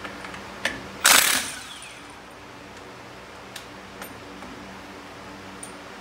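A short, loud metal clatter about a second in, like a metal tool or part being put down, just after a single sharp click. A steady fan hum runs underneath.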